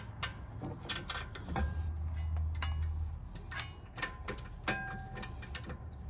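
Irregular light metallic clicks and clinks as steel bolts are fitted and threaded by hand into a brake caliper bracket, some with a short ring. A low hum runs for about a second and a half near the middle.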